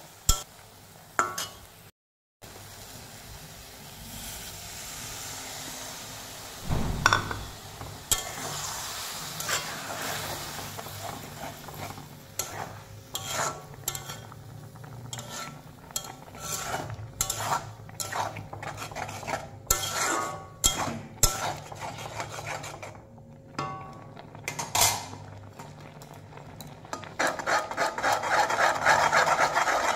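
A metal spatula scrapes and knocks against a metal kadai as a curry is stirred, with the food sizzling in the oil. Near the end the stirring turns fast and continuous into a steady scraping rasp.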